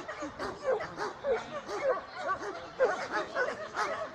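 Dog barking and yipping in a quick run of short, high, excited barks, about two to three a second.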